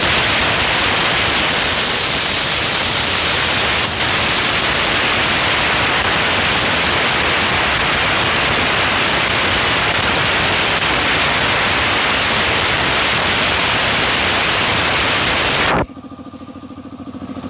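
Compressed air blasting out of an air compressor tank's pull-ring safety valve held open by hand: a loud steady hiss that bleeds the tank down from about 8 bar to about 4 bar, cutting off suddenly about 16 seconds in when the ring is let go.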